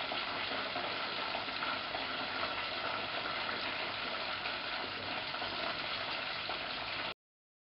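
Sweet potato pieces deep-frying in hot oil in a small stainless saucepan: a steady sizzle that cuts off abruptly about seven seconds in.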